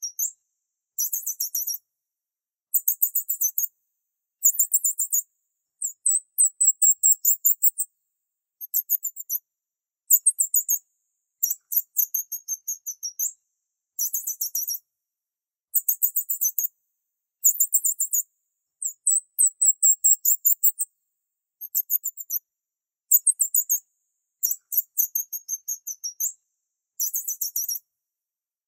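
Very high-pitched chirping in short trills of rapid pulses, each under a second long, repeated over and over with brief silent gaps. There is no low cooing.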